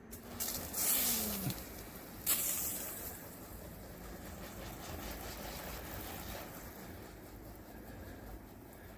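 Garden sprayer spraying a moss and algae cleaner: two strong bursts of hissing spray in the first three seconds, then a fainter steady hiss.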